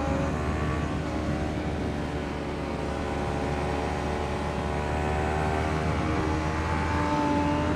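Sportbike engine held at high revs under full throttle, heard onboard, with a steady drone and wind noise and only small shifts in pitch.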